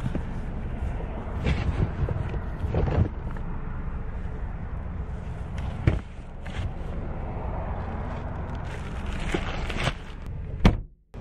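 Packages in plastic mailers being handled and set down in a car: rustling with several knocks and thumps, the loudest about ten seconds in, over a steady low rumble. The sound cuts off abruptly near the end.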